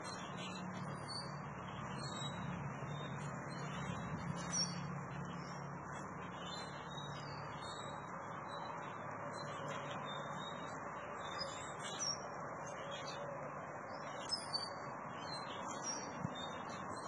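Small birds chirping in short, scattered high notes over a steady rush of wind.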